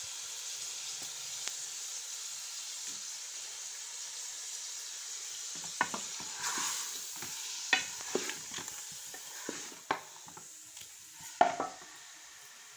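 Chicken pieces and chopped tomatoes sizzling in oil in a metal pot while a spoon stirs them, scraping and knocking against the pot several times from about six seconds in. The sizzle quietens near the end.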